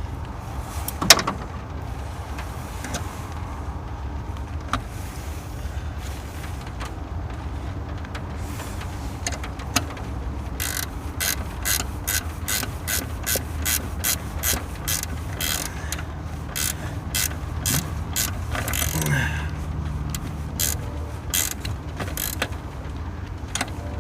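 Ratchet wrench clicking in quick, even strokes, about two to three clicks a second through the second half, as a battery terminal clamp is worked on. A sharp click about a second in, over a low steady hum.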